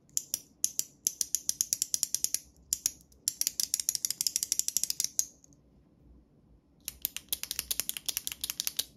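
A 3D-printed plastic fidget clicker clicked rapidly with the thumb in several quick runs of sharp clicks. After a pause of about a second and a half, the push button of a retractable click pen is clicked rapidly for about two seconds.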